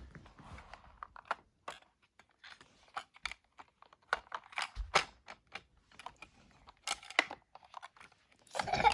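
Small plastic toy dump truck being handled and moved about, giving irregular light clicks and taps as its plastic parts knock together.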